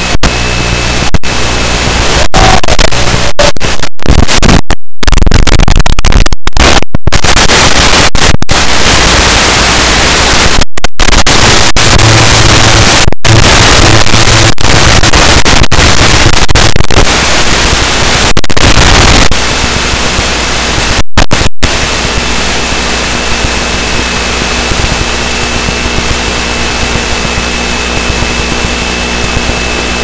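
Loud hiss of radio static from an analog FPV video link's audio channel, broken by many brief dropouts. It is rougher and louder for most of the first twenty seconds, then settles into a steadier hiss with a faint high whine.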